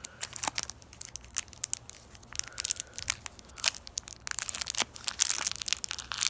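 A lollipop wrapper crinkling and crackling in the fingers as it is worked at and pulled, a stubborn wrapper that will not come open. The crackles come in a steady run and grow denser about four seconds in.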